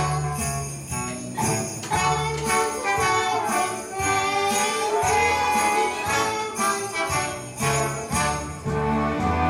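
Upbeat Christmas song music with jingle bells shaking on a steady beat.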